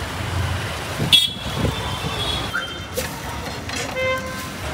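Street traffic noise, with a vehicle horn tooting briefly near the end and a short high tone about a second in.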